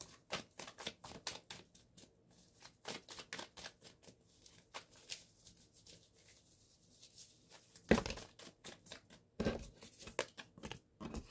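A deck of divination cards shuffled by hand: a long run of quick, light card-on-card clicks and flicks, with two louder knocks about eight and nine and a half seconds in.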